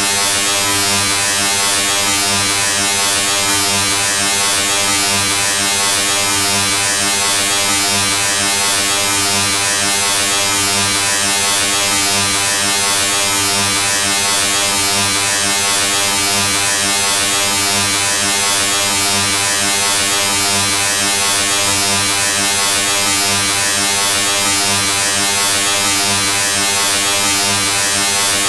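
A loud, steady electronic buzz with a strong hiss over it, unchanging throughout: a harsh synthetic sound effect.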